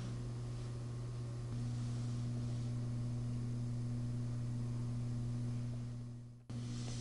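Room tone: a low, steady electrical-sounding hum with faint hiss. It steps slightly louder about a second and a half in, fades away near the end, and cuts back in abruptly.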